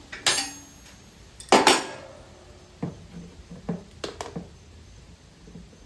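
Clinks and knocks of tools and oil-drain gear being handled: a sharp clink, then the loudest clank with a little ringing about one and a half seconds in, followed by several lighter knocks.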